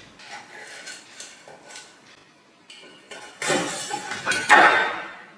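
A knife clinking and scraping against a metal muffin tin as baked tartlets are pried out onto a plate: light clinks at first, then a louder rough scrape about three and a half seconds in.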